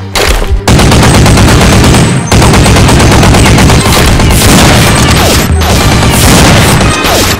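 Rapid automatic gunfire sound effects: long bursts of machine-gun fire starting about half a second in, with a brief break around two seconds.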